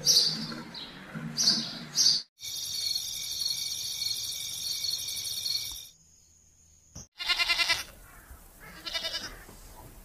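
Eurasian tree sparrows chirping. After a sudden cut comes a steady high buzz lasting about three seconds. Then a goat bleats twice with a wavering voice, the first bleat loud and the second fainter.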